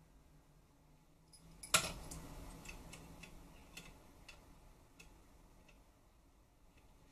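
A sharp click about two seconds in, then scattered light ticks and clicks: a plastic model airplane being handled and adjusted in the clamping arms of a model holder.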